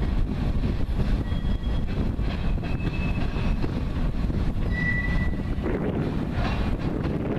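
Freight cars rolling past with a steady rumble of wheels on rail, broken by a few brief high wheel squeals, the clearest about five seconds in.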